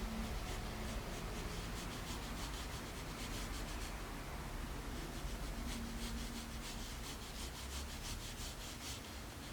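Soft 5B graphite pencil (Tombow MONO 100) scratching across thin printing paper in quick repeated strokes, several a second. The strokes ease off briefly about halfway through, then pick up again.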